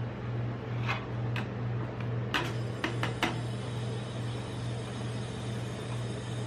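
Steady low hum from the rolled-ice-cream cold plate's refrigeration unit. About one to three seconds in, a metal knife or spatula clicks sharply against the steel plate five times.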